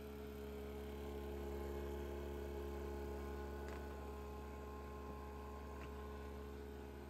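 Harvest Right premier oil vacuum pump running steadily with an even, relatively quiet hum, pulling vacuum on the freeze dryer chamber during its startup test.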